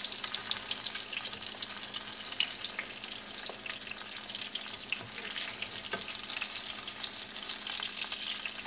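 Eggplant omelette frying in hot oil in a pan: a steady crackling sizzle full of fine pops, with a couple of light knocks of a spatula against the pan about five and six seconds in as the omelette is turned.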